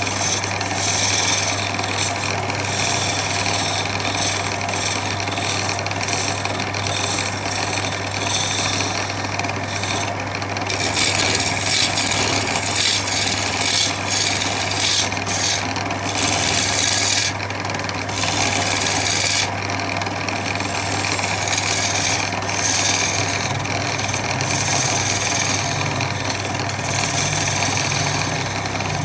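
Power sander running against wood: a steady motor hum under a noisy scratch that swells and eases as the sander moves over the surface.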